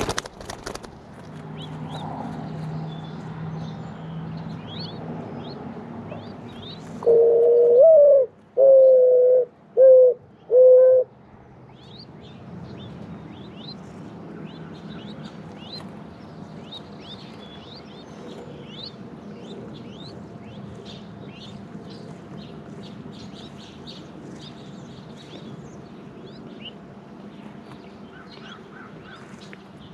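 Mourning dove cooing loud and close, about seven seconds in: a drawn-out first note that swoops up and back down, then three shorter level coos. A brief flutter of wings at the very start, and small birds chirping faintly throughout.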